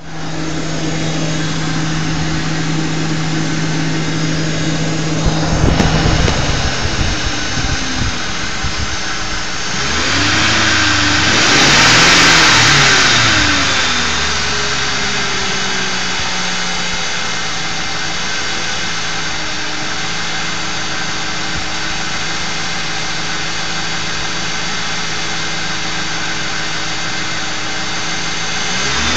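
A 2001 Ford Crown Victoria's 2-valve 4.6-litre V8 running with a steady buzzing drone that stops about five seconds in. The buzz is the sign of a failed anti-drain-back valve in the oil filter. About ten seconds in, the engine is revved up and back down, then settles to a steady idle.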